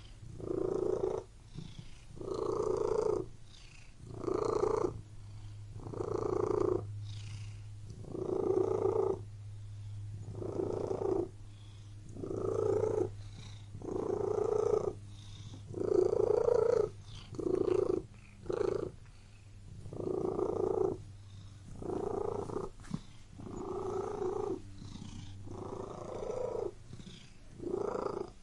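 Domestic cat purring close up, the purr swelling and fading in a steady rhythm about every two seconds as the cat breathes in and out: the purr of a relaxed, contented cat.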